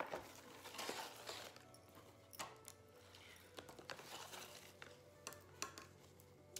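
Faint background music with a few light clicks and rustles of handling.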